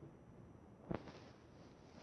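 Near silence: faint room tone, with one short, light tap about a second in.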